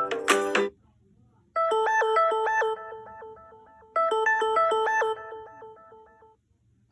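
Samsung Galaxy S22 ringtone: a short melody of quick pitched notes, played twice, each pass fading away at its end. In the first second the tail of another ringtone cuts off, followed by a brief silence.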